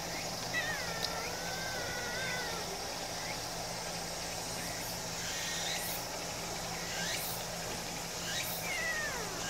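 Brown tabby kitten meowing: one long, wavering meow about half a second in, and a second, falling meow near the end.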